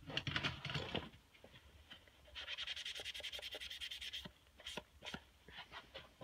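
A knife blade being rubbed briskly back and forth with a soft pad, a fast run of short scratchy strokes lasting about two seconds, wiping off the etching residue to reveal the freshly etched logo. It comes after about a second of rustling as the knife is picked up, and a few light clicks of handling follow near the end.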